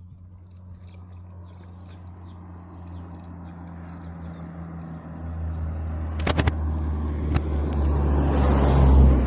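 A motor vehicle's engine hum growing steadily louder as it approaches and passes close by, loudest near the end, with a few sharp clicks partway through.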